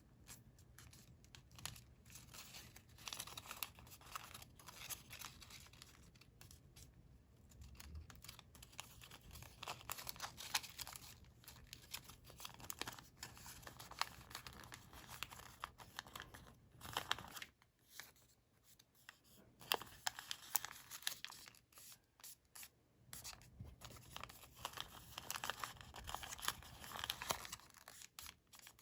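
Sheets of colored origami paper being handled, folded and creased by hand: irregular crisp rustles and crinkles with sharp little snaps as folds are pressed, broken by short pauses.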